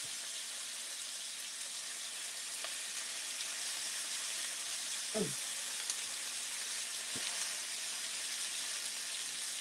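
Beef steak searing in a hot pan: a steady sizzle of fat and juices as the meat builds a crust on one side.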